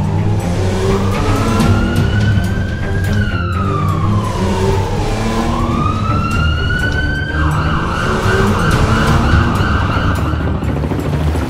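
Cartoon siren sound effect wailing, rising and falling slowly in pitch twice. Then it holds a steady, rough tone for about three seconds and cuts off about a second before the end.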